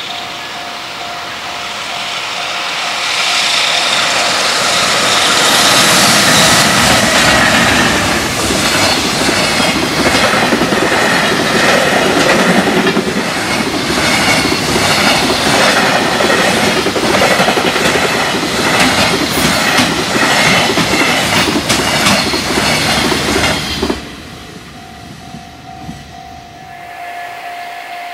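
Long freight container train passing a level crossing at speed, its wheels clattering rhythmically over the rail joints, growing louder over the first few seconds as it arrives. A level-crossing warning bell rings at the start and again after the train sound cuts off suddenly near the end.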